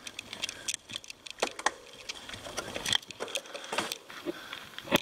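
Scattered light clicks and rattles, irregularly spaced, with no steady rhythm.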